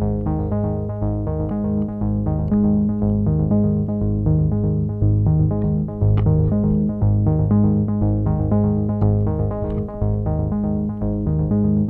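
Background electronic music: keyboard chords over a steady, even beat.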